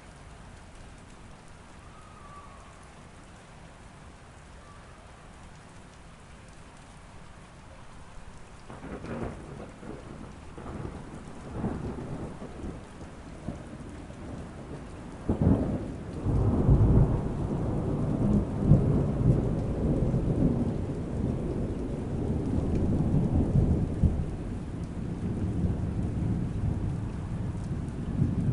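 Steady rain, with thunder starting to rumble about a third of the way in. Near the middle a sharp thunderclap breaks, followed by a loud, low rolling rumble that carries on over the rain.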